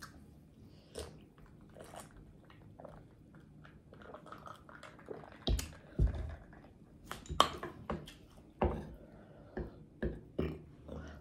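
Close-miked mukbang eating sounds: quiet sipping from a glass at first, then from about halfway on, chewing and mouth smacking broken by sharp clicks and knocks.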